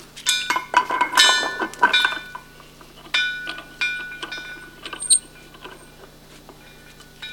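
Metal clinks and knocks that ring on briefly, as a metal oxygen regulator yoke is slipped over a cylinder's post valve and its pin-index prongs are seated in the valve's holes. The clinks come in bunches during the first two seconds and again around three to five seconds in, then only faint small ticks.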